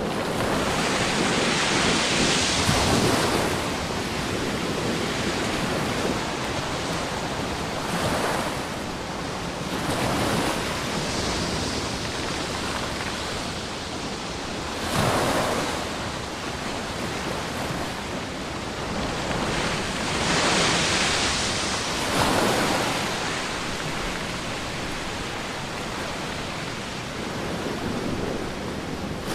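Ocean surf washing onto a sandy beach, a steady hiss of water that swells every few seconds as waves break.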